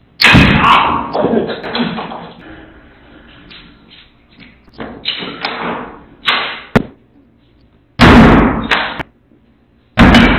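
Crashes and knocks of thrown objects hitting and smashing. A loud crash just after the start rings on for a second or two. Smaller knocks come around five to seven seconds in, and heavy crashes about eight seconds in and again near the end.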